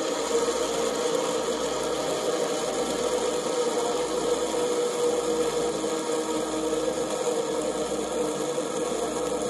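Two fidget spinners spinning against a tabletop, a steady whirring buzz.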